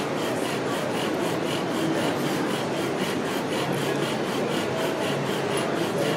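Bow drill at work: the wooden spindle grinds in its socket on the hearth board as the bow is sawn steadily back and forth, a rhythmic rasping rub. This is the early stage, where the friction makes brown wood dust, not yet the black dust that holds an ember.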